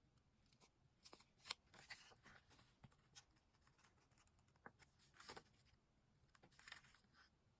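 Faint, scattered crinkles, rustles and light clicks of paper and stickers being handled, with one sharper tick about one and a half seconds in.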